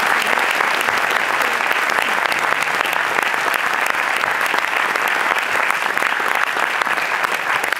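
Many people applauding steadily, a dense patter of hand claps.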